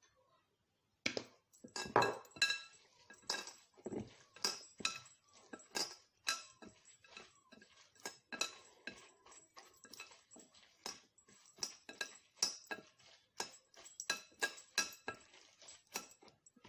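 Hands kneading minced turkey in a glass bowl, repeatedly knocking and clinking against the glass with a brief ring each time; the knocks start about a second in and go on irregularly, about two or three a second.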